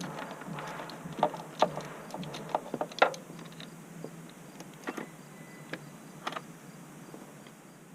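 Irregular metallic clicks and clinks of hand tools working a car battery's positive terminal clamp, thickest in the first few seconds and then a few scattered ones.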